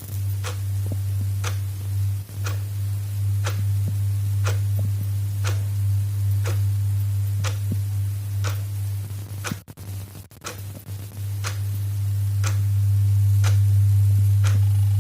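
Clock ticking off the seconds: sharp, evenly spaced ticks over a steady low hum, with the sound dropping out briefly about ten seconds in.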